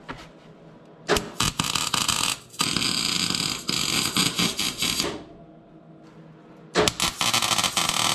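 MIG welder tack-welding a steel exhaust pipe joint, the arc running in three bursts with short pauses between them, the last near the end.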